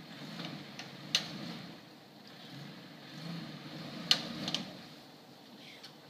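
An off-road 4x4's engine running with a low, swelling rumble, with two sharp knocks, about a second in and about four seconds in, and a few lighter clicks.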